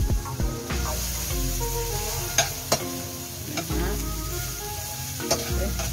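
Chopped garlic and onion sizzling in hot oil in a wok, stirred with a spatula that scrapes the pan and knocks against it a few times.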